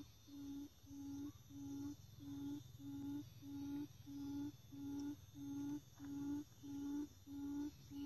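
Quail call: a low hooting note repeated evenly about twice a second, the kind of call used to lure quail to a trap.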